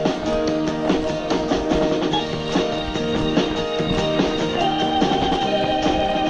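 Rock music instrumental passage: electric guitar and drum kit with a steady beat, no vocals.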